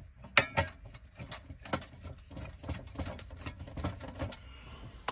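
A quick, irregular run of light clicks and taps, roughly three a second, that stops a little after four seconds in.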